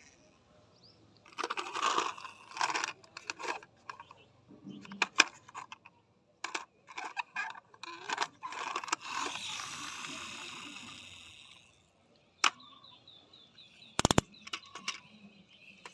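Hands handling toy packaging: irregular rustling and crinkling with sharp clicks, and a longer rustle partway through that fades out.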